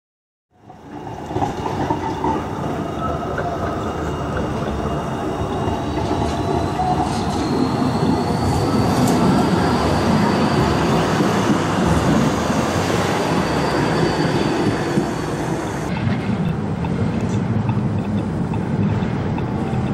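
Tram passing on street track: steady rumble of steel wheels on the rails with a thin high whine and a few clicks, coming in about half a second in.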